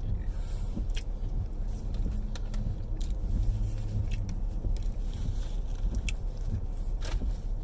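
Steady low rumble of a car being driven, heard inside the cabin, with scattered short crunching clicks from biting into and chewing a crispy fried chicken sandwich.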